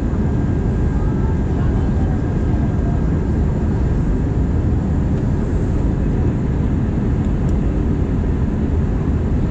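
Steady in-flight cabin noise of an Airbus A320, heard from a window seat beside the wing engine: a dense, even low rumble of the turbofan engines and rushing air, with faint steady whines above it.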